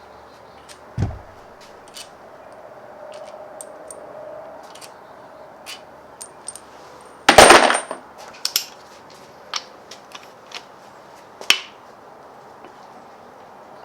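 Hand-tool work on the engine's cylinder head bolts: scattered light metallic clinks and ticks, a dull thump about a second in, and a loud burst of sharp clatter about seven seconds in.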